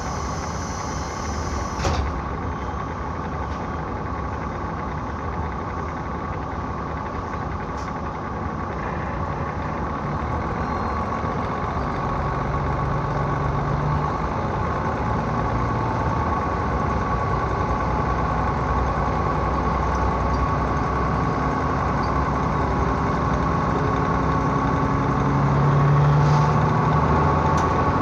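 KiHa 66 diesel railcar under way: a steady engine drone mixed with wheel and rail noise, getting gradually louder through the stretch, with a sharp click about two seconds in and a stronger engine note near the end.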